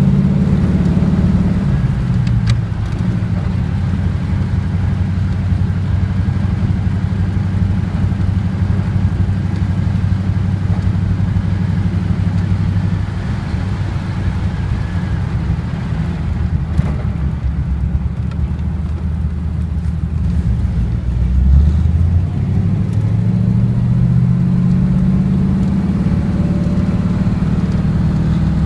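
Engine of a 1939 car running while driving: it drops in pitch as it eases off in the first couple of seconds, runs low and steady, then picks up again as it accelerates in the last several seconds.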